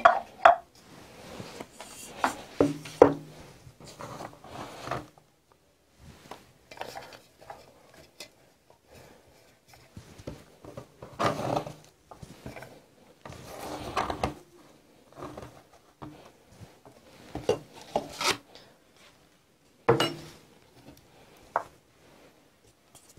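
Chopped chicory leaves being gathered by hand off a plastic cutting board and dropped into a jar: irregular rustling and scraping, with a few sharp knocks of kitchenware being handled.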